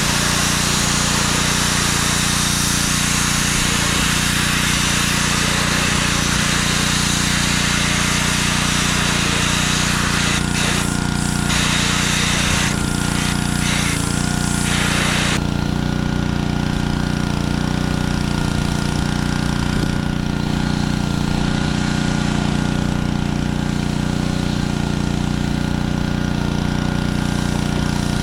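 Gas-engine pressure washer running steadily while high-pressure water sprays from a telescoping wand with a hiss. The spray stutters off and on a few times and then stops about halfway through, leaving the engine running on its own.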